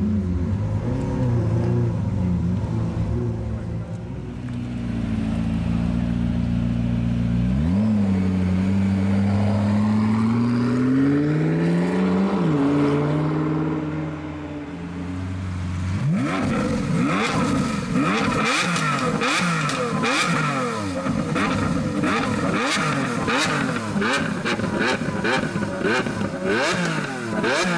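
A McLaren P1's twin-turbo V8 runs low, then pulls away with a note that climbs in pitch for several seconds. Then a Lamborghini Aventador SV's V12 is revved over and over in quick blips, with sharp crackles between them.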